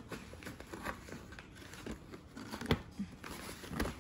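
Long fingernails and hands scraping and tapping on a cardboard box while trying to pry its flap open, with scattered small clicks and a sharper tap about two-thirds of the way through.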